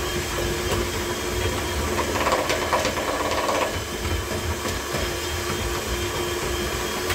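Electric hand mixer with dough hooks kneading a minced-meat mixture in a plastic bowl: a steady motor whine with the hooks churning through the meat.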